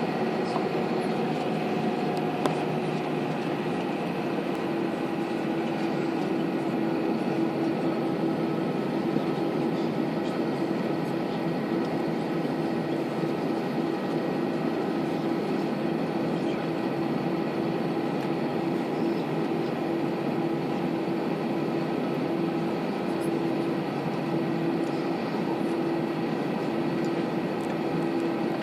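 Aeroplane engines running steadily: an even rushing noise with a constant hum and fainter higher tones, holding the same pitch and loudness throughout.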